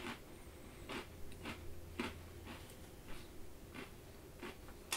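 Quiet eating of breakfast cereal from a bowl with a spoon: a string of small, sharp crunches and clicks, roughly one every half second to a second.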